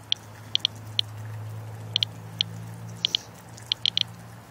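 Inspector USB Geiger counter clicking at an irregular random rate of roughly two to three short clicks a second, each click a detected count, over a low steady hum. The count rate is around 150 counts per minute on a rain-wet car hood, well above the roughly 40 CPM background.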